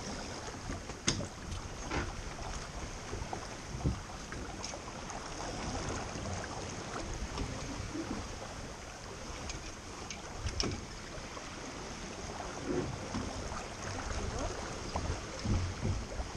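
Wind buffeting the microphone over water rushing past a small boat under way, with a few sharp knocks.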